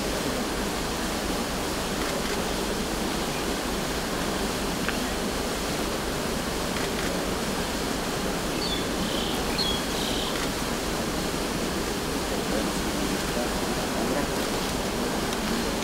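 Steady, even hiss of outdoor background noise, with a few faint, short high chirps about nine to ten seconds in.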